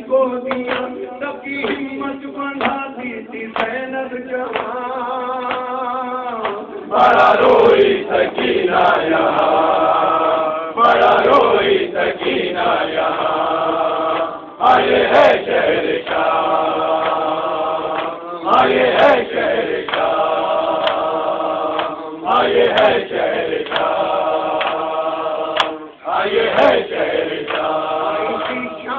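Men chanting a nauha, an Urdu Shia lament. A lead reciter sings at the microphone, and from about seven seconds in a louder group of voices joins in repeated phrases of a few seconds each.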